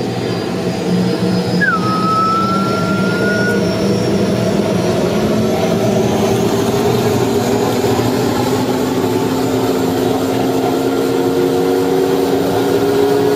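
Helicopter engine and rotor running, heard from inside the cabin: a steady mechanical hum whose pitch rises slowly through the second half as it spools up. A short whistling tone sounds about two seconds in.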